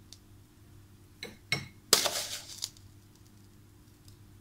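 A metal spoon clinks and taps against a plastic sugar tub and a glass jar while sugar is spooned in: a few short light clinks, the loudest about two seconds in.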